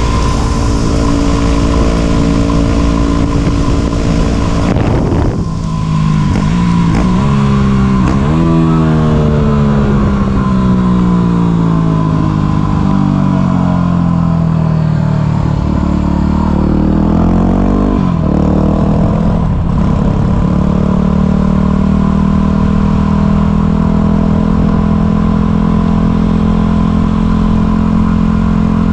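Yamaha WR250 supermoto's single-cylinder four-stroke engine under way. It holds a steady note, then revs up through several quick gear changes about five seconds in. It falls slowly in pitch as the bike slows, rises briefly again, and then settles into a steady cruise.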